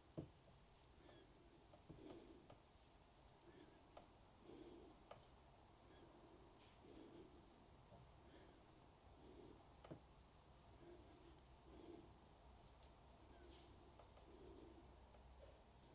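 Faint, irregular clicks of knitting needles and the rustle of yarn as stitches are cast on one by one with a knitted cast-on.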